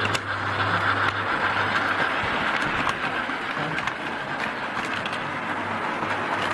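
Model steam locomotive and coaches running along the layout track: a steady whir of motor and wheels with a few faint clicks.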